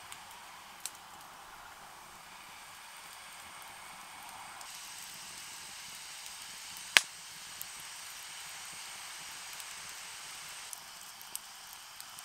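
Wood campfire burning with a steady hiss and scattered small crackles, and one loud sharp pop about seven seconds in.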